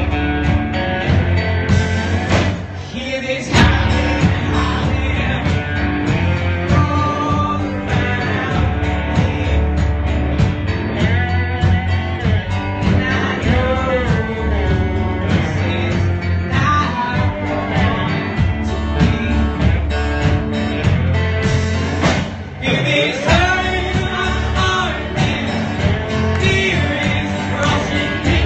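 Live band music: a male singer singing while strumming an acoustic guitar, backed by a band on guitar, bass and drums.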